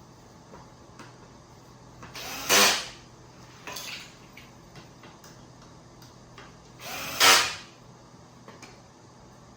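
Power drill driving screws, two short runs about four and a half seconds apart, each starting softer and ending in a louder burst as the screw seats.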